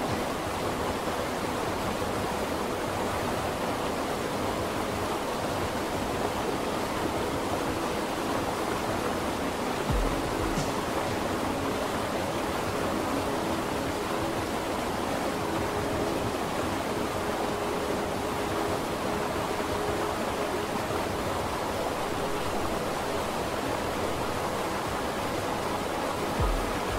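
Steady rushing ambience noise under soft, sustained background music, with two short low thuds, one about ten seconds in and one near the end.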